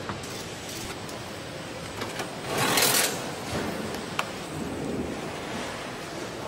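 Work noise in an aircraft paint hangar: a steady hiss with scattered clicks and knocks, and a louder hiss of about half a second a little before the middle.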